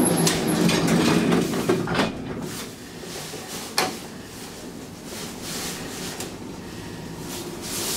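Elevator car's sliding door closing under its door operator, with a layered mechanical hum for about the first two seconds. It shuts with a click, and a sharper clack follows nearly four seconds in. A quieter steady running sound continues after that.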